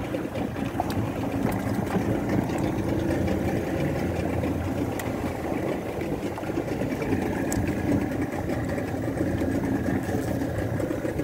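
Boat engine running steadily, an even low drone.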